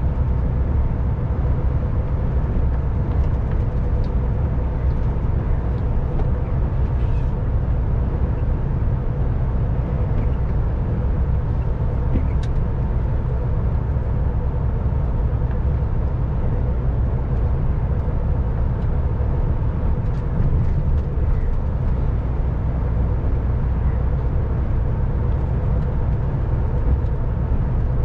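MAN TGX lorry driving steadily on the motorway: an even engine drone and road rumble, with a steady hum over it.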